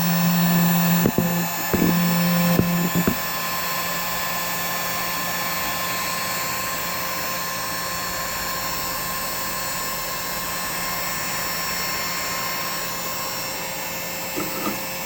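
Electric heat gun running on its low setting: a steady fan and air whir with a low hum. A few clicks come in the first three seconds, after which it runs slightly quieter and steady.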